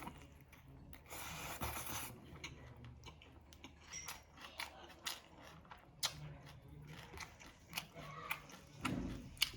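Close-up chewing and crunching of crispy fried whole fish, with many short sharp crunches and clicks.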